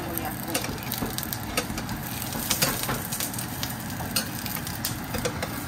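Bánh xèo batter with pork, shrimp and bean sprouts sizzling in a hot nonstick frying pan. A metal ladle clicks and scrapes against the pan now and then.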